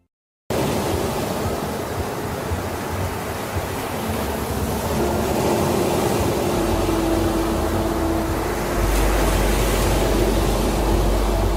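Ocean surf washing up a sandy beach: a steady rush of breaking waves that starts suddenly about half a second in, with a deeper rumble building in the second half.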